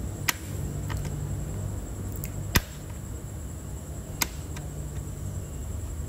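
About six sharp plastic clicks, spread a second or so apart, as the snap-in clips of an Acer Nitro laptop's plastic base cover are pried loose with an opener; the loudest comes about two and a half seconds in. A low steady hum runs underneath.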